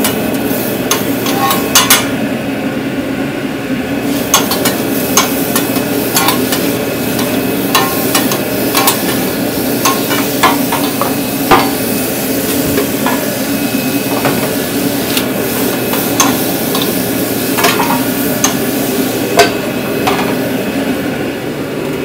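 Food frying in a food-truck kitchen: steady sizzling with irregular sharp clacks of a metal utensil stirring and striking the pan or griddle, over a steady low hum.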